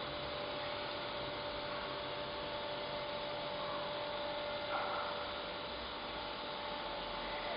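Steady electrical hum with a couple of fixed high tones over an even hiss, and a brief rustle about five seconds in.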